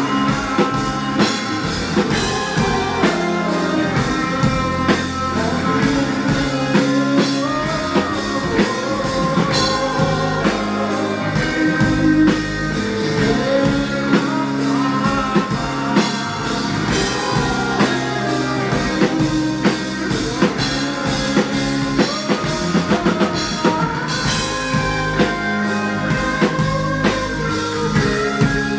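Live rock band playing a song: drum kit, guitars and singing.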